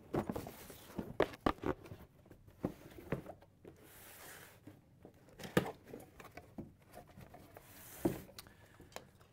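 Cardboard boxes being handled: a box of welding accessories is lifted out, set down on a steel workbench and opened, with scattered knocks, cardboard scrapes and rustling. The sharpest knocks come about halfway through and near the end.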